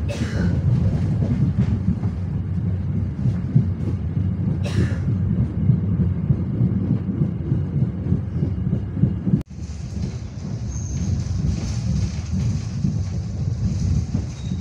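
Passenger train running on the rails, heard from inside a coach: a steady, dense rumble of wheels and carriage. About nine and a half seconds in the sound cuts out for an instant, then resumes with more hiss.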